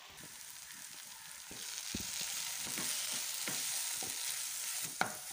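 Onion-tomato masala sizzling in oil in a non-stick pan as a wooden spatula stirs in freshly added chilli and coriander powders, with short scrapes and light knocks of the spatula against the pan. The sizzle grows louder about a second and a half in.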